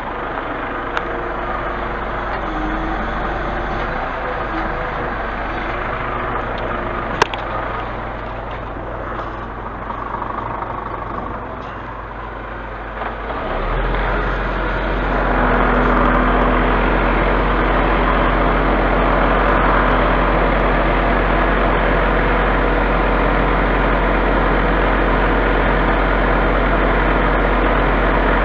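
Scania truck's diesel engine running steadily. About 13 seconds in it grows louder and then holds at a higher, even level. A single sharp knock sounds about 7 seconds in.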